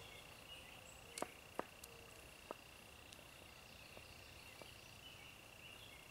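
Faint, steady, high-pitched insect trill, with a few sharp clicks in the first few seconds.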